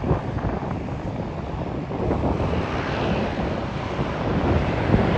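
Floatplane engine running steadily, heard through wind buffeting the microphone.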